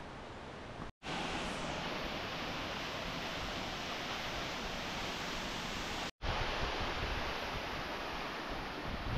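Steady rushing of a waterfall in spate, an even wash of water noise. It drops out abruptly for a moment about a second in and again about six seconds in.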